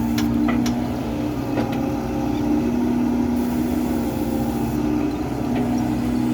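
Excavator's diesel engine running steadily, with a few sharp knocks in the first two seconds.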